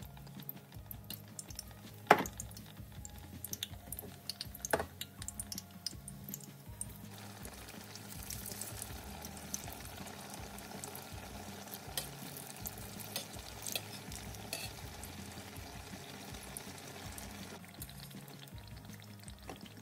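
Batter-coated aubergine slices deep-frying in hot oil in a stainless steel pan: oil sizzling with scattered crackles, louder from about seven seconds in until near the end. A sharp knock comes about two seconds in and a fainter one near five seconds.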